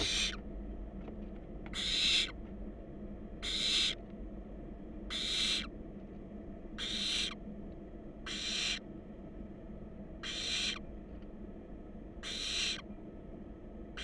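Barn owl nestlings giving their raspy, hissing begging calls, about eight in a row, one every one and a half to two seconds.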